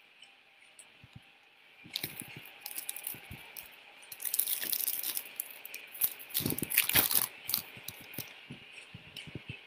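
Irregular crackling and rustling noise with scattered clicks and low thumps, starting about two seconds in and loudest in the middle.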